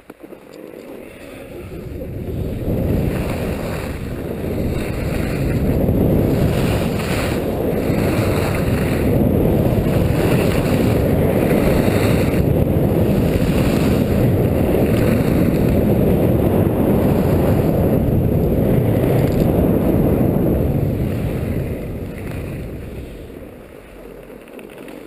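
Wind buffeting an action camera's microphone as a skier runs down a groomed slope, with the skis running over the snow. It builds over the first few seconds, holds steady, and dies away near the end as the skier slows to a stop.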